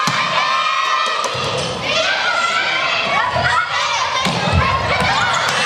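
Volleyball struck sharply on the serve right at the start, then young voices shouting and cheering through the rally, with several dull thuds on the wooden gym floor.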